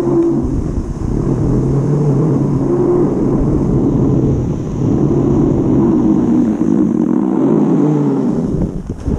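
Wind buffeting the microphone during a run down a snowy ski slope, mixed with the scrape of sliding over snow. It is loud and steady, dipping briefly near the end.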